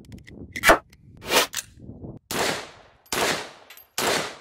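Cartridges click sharply as they are pressed into an AR rifle magazine. From about two seconds in, an AR-style semi-automatic rifle fires three shots, a little under a second apart, each report ringing out briefly.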